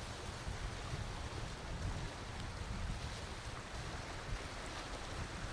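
Wind rumbling and buffeting on the microphone over a steady, even hiss from the sea.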